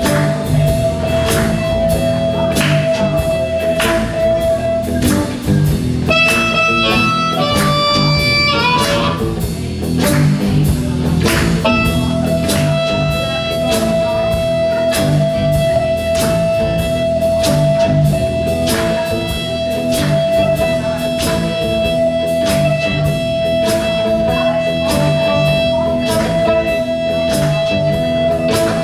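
Blues band playing live: homemade box guitars over a drum kit's steady beat. A long held high note sounds over much of it, breaking off twice in the first half and then holding steady from about twelve seconds in.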